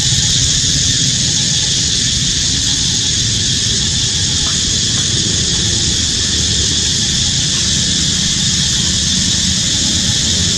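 Steady, unbroken high-pitched drone of forest insects over a low rumble.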